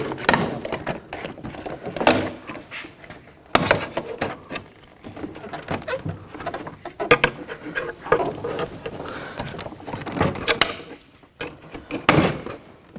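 Plastic door trim panel of a BMW X5 front door being worked loose by hand: scattered clicks and knocks with rustling, the sharpest knock about three and a half seconds in.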